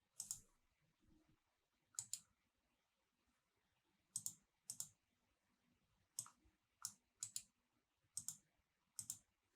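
Computer mouse clicking: about fifteen short, sharp clicks at irregular intervals, many in quick pairs, with near silence between them.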